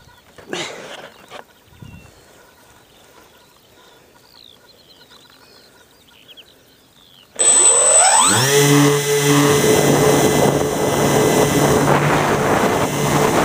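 Faint bird chirps over quiet outdoor air. About seven seconds in, an FPV model aircraft's electric motor spins up with a quick rising whine and then runs steadily at a high pitch, with wind rushing over the onboard microphone as it takes off.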